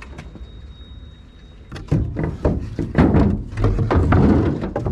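A faint, thin, steady high whine for the first second and a half, then a quick, irregular run of loud knocks and thumps.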